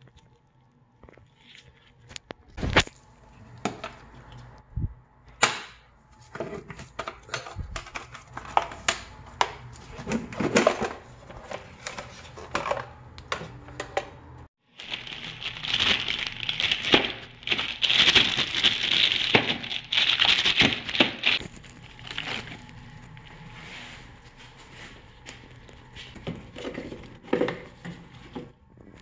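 Hand-work noises on car parts: scattered clicks and knocks of rubber leads and plastic parts being handled, then, about halfway through, a denser rasping, hissing noise with many small clicks that eases into lighter handling clicks near the end.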